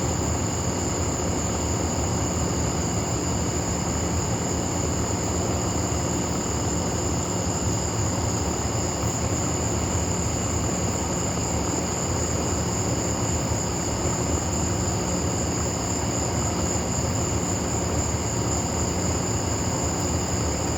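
Steady night chorus of crickets or katydids, continuous high trilling, over an unbroken low rumble.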